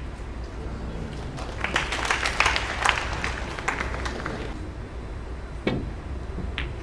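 Audience clapping for about three seconds, starting about a second and a half in, after a sharp click of snooker balls at the start; two more single ball clicks near the end.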